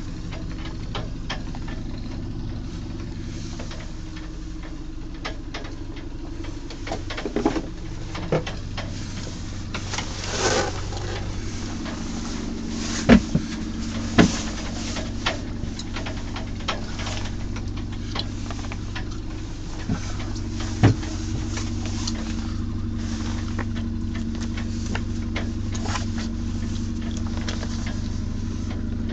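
A boat's engine running steadily, heard from inside a sailboat's cabin, its hum growing a little stronger about two-thirds of the way through. Scattered knocks and clicks sound over it.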